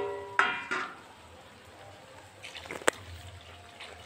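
Steel bowl clinking against a metal kadhai twice in the first second, each hit ringing and dying away, as water is poured into the fish curry. Near three seconds in come a few small knocks and one sharp tap.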